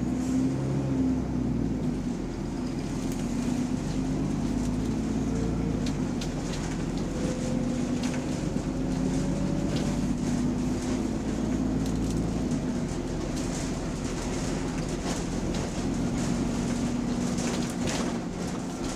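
Bus engine running under way, with the sound of an exhaust leak; a faint whine rises in pitch through the middle stretch.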